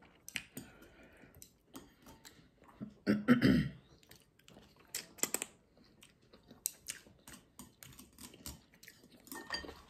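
Close-up eating sounds of someone eating noodles: chewing and wet mouth smacks with many short, sharp clicks, loudest a little past three seconds in and again around five seconds.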